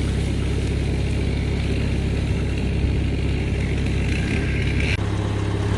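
Log skidder's diesel engine running steadily, with a high whine that rises slightly and cuts off suddenly about five seconds in, when the engine note changes.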